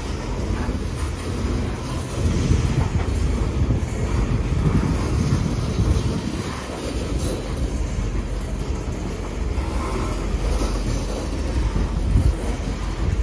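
Open-top coal cars of a freight train rolling steadily past, their steel wheels on the rails making a continuous noise heavy in the low end.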